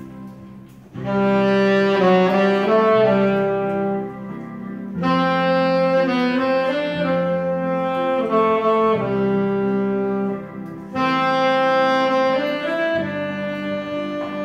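Alto saxophone playing a slow melody of long held notes in three phrases, entering about a second in, then about five and eleven seconds in, over a soft accompaniment that carries on between the phrases.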